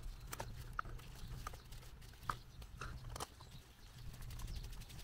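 Scattered small clicks and taps of screws and a screwdriver on the metal gearbox cover of a VW Beetle wiper motor as the cover screws are fitted, over a low steady hum.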